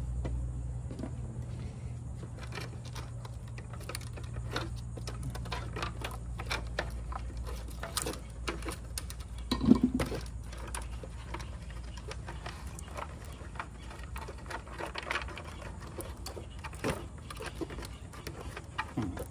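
Irregular small clicks, taps and rattles of hand tools and electrical wires being worked at the bottom of a boat-lift control box, over a low steady rumble.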